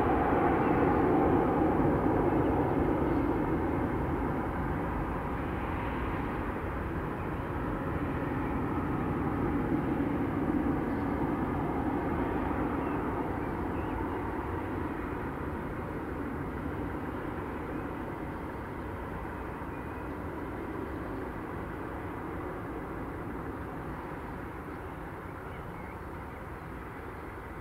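Boeing 737-800's CFM56-7B jet engines rumbling steadily as the airliner slows on the runway after landing. The sound fades gradually as it turns and rolls away.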